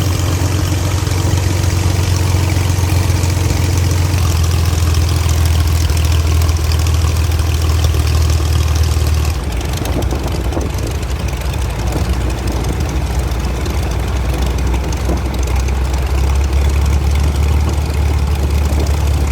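Propeller aircraft engine running steadily at low power, a deep, even drone. About nine seconds in the higher hiss drops away abruptly, and the drone grows stronger again near the end.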